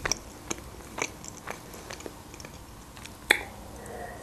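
Close-miked chewing of food with soft wet mouth clicks, about two a second. A sharper click comes a little past three seconds in, as a glass of juice is raised to the lips to drink.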